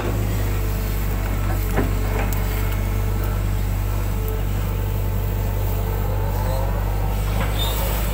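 Hydraulic excavator's diesel engine running steadily, heard from the operator's cab, with a few short knocks from the bucket and boom as it works soil while cleaning out a ditch.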